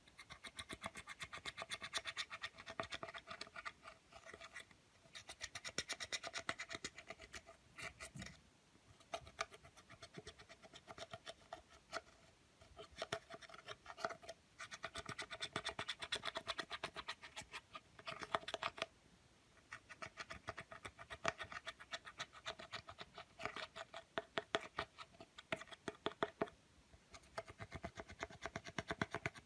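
Clear slime being squeezed and stretched by hand: dense runs of small sticky clicks and crackles, in bursts of a few seconds with short pauses between.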